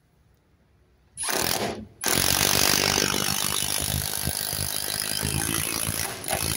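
Cordless drill-driver driving a large screw into a timber brace: a short burst of the motor about a second in, then after a brief pause a continuous run of about four and a half seconds as the screw goes in.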